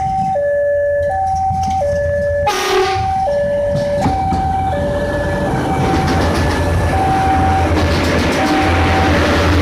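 Plasser & Theurer track-maintenance machine running on diesel, with a two-tone warning signal that alternates high and low about every 0.7 s over the engine's steady rumble. A short hissing burst comes about two and a half seconds in.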